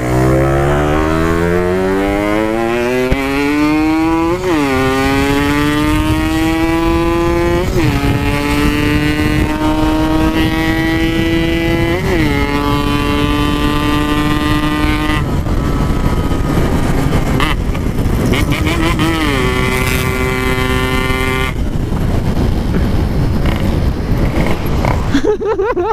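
Yamaha RX-King's single-cylinder two-stroke engine through an aftermarket PK 3 exhaust, pulling away and rising in pitch, with a quick flare and drop of revs at each of three upshifts; it then cruises at a steady pitch, shifts again, and eases off near the end.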